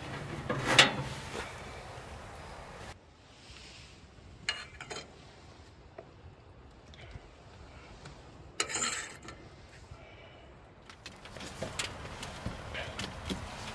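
Kindling and pine cones burning in a POMOLY Dweller Max 2.0 steel wood stove, with scattered crackles and a few sharp metallic clinks and knocks, the loudest about a second in and another brief burst near the end of the quieter middle stretch.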